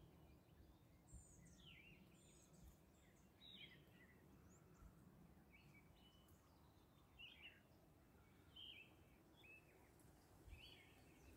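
Faint songbird chirps and short whistles, scattered and overlapping throughout, over near-silent ambience.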